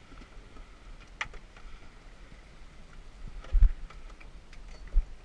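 A freshly landed chub mackerel knocking against the fiberglass deck of a small boat. There are scattered light ticks, then two loud dull thumps, one at about three and a half seconds and the second a little over a second later.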